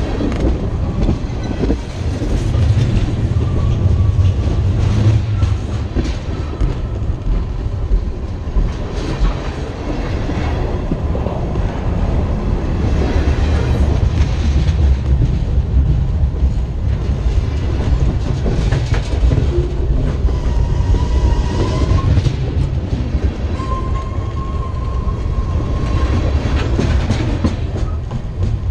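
Freight cars of a Norfolk Southern train rolling directly over a microphone set between the rails: a loud, continuous low rumble with repeated clacks of steel wheels on the rail. Faint, brief high squeals are heard a few times in the second half.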